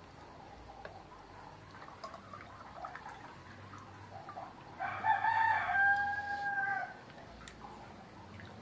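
A rooster crows once, about five seconds in: a drawn-out call of about two seconds that starts rough, then holds a steady note and drops slightly at the end. Faint scattered clicks and taps are heard around it.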